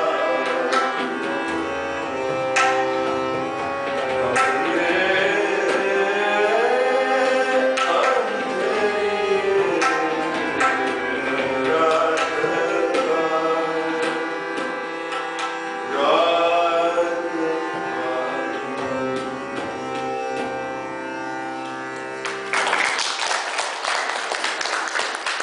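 Hindustani-style performance: a voice singing gliding, ornamented phrases over steady harmonium chords, with tabla strokes and the deep boom of the bass drum. Near the end the music stops and gives way to clapping.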